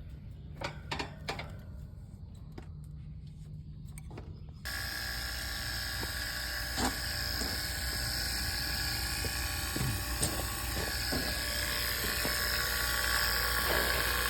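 Air-conditioning compressor running with a steady whine and hum, which comes in suddenly and much louder about five seconds in, after a low hum with a few clicks; the compressor is taken to be bad.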